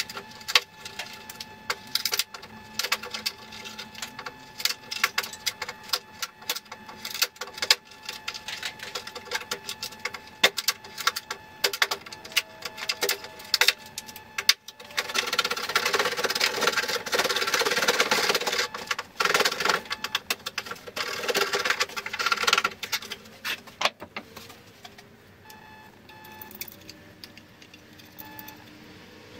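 Hand tools working a wooden board on a workbench: irregular knocks and clicks for the first half, then a run of repeated scraping strokes across the wood from about halfway, easing off near the end.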